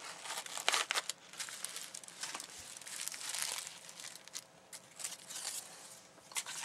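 Paper packaging crinkling and rustling in irregular bursts as it is handled: a compostable paper mailer bag and honeycomb kraft paper wrap being pulled open. The rustles are loudest about a second in and again near the end.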